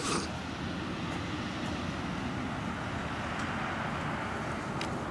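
Steady outdoor background hiss, even and unchanging, with a few faint ticks.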